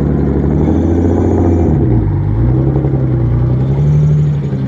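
Boosted Infiniti G37's engine idling loud and steady; the idle sags about two seconds in and climbs back up over the next two seconds.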